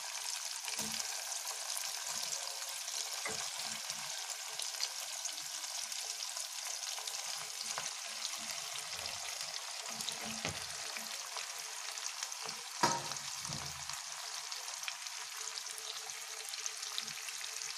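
Hot oil sizzling steadily in a kadhai as stuffed okra fries in a tomato, onion and garlic paste, with scattered knocks from the okra and plate against the pan. The sharpest knock comes about 13 seconds in.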